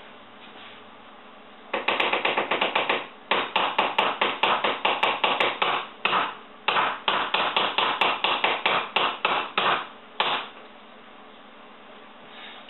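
A spoon tapping rapidly against a bread-machine baking pan, about six sharp clicks a second, in three runs with short pauses between them.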